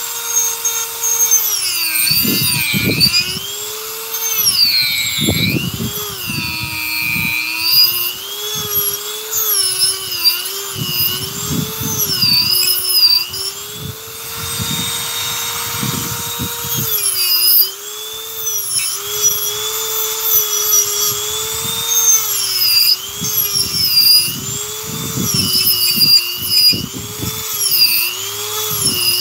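Handheld Dremel rotary tool carving wood at high speed: a steady high whine that repeatedly sags in pitch as the bit bites into the wood, with rasping grinding each time, then climbs back as it eases off.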